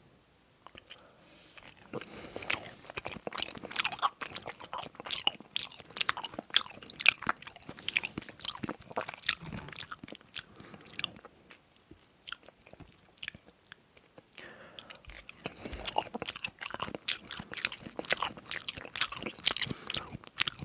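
Close-miked chewing of food in the mouth: many quick clicks, starting about two seconds in, stopping for about three seconds in the middle, then resuming.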